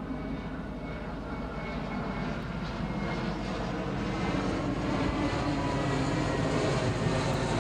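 Twin-engine jet airliner flying low overhead: steady jet engine noise with a faint high whine, slowly growing louder.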